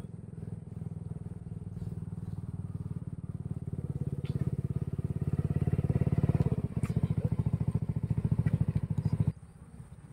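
A small engine running with a fast, even low pulse, growing louder as it comes closer, then stopping abruptly about nine seconds in.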